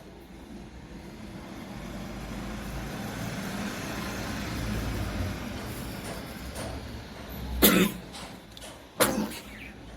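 A person blowing their nose hard: a long blow that slowly builds, then two short, forceful blasts a little over a second apart, the first the loudest.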